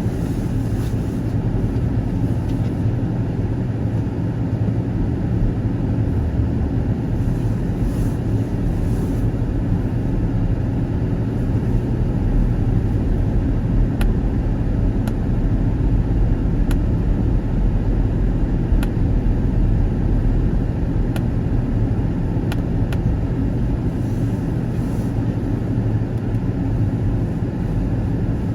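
Car being driven, a steady low rumble of engine and road noise, with a few faint scattered clicks in the second half.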